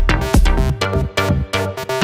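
Background electronic music with a steady beat, about two to three strokes a second, and synth lines.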